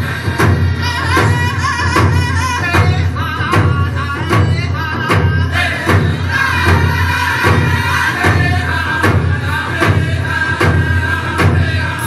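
Music with a steady percussive beat, a strong bass line and a wavering melody.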